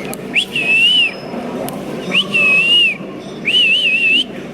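A series of three clear whistled notes, each just under a second long and about a second apart. Each starts with an upward swoop; the first two then hold a smooth arched pitch, and the third warbles up and down.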